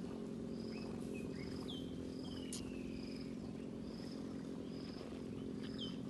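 Young African elephant calf giving a low steady rumble as it suckles from a milk bottle. Over it, a short high insect chirp repeats a little more than once a second, with a few brief falling bird whistles.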